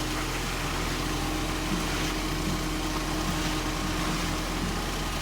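An engine idling steadily, with a held tone over a low hum.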